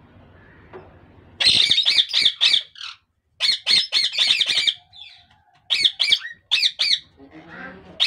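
Plum-headed parakeets calling in three bursts of quick, high-pitched squawks, several calls a second, starting about a second and a half in.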